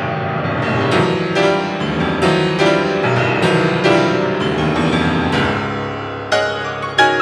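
Piano playing a quick passage of repeatedly struck notes and chords, with loud accented chords near the end.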